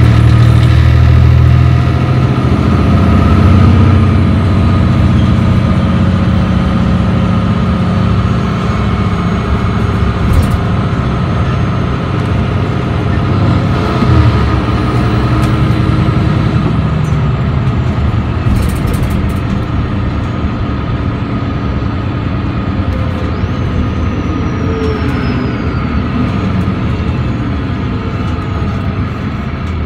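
The six-cylinder OM936h diesel engine of a Mercedes-Benz O530 Citaro C2 G articulated bus, with its Voith D864.6 automatic gearbox, pulling under kickdown (full throttle). It is loud at first and grows gradually quieter, an engine the owner feels no longer sounds healthy.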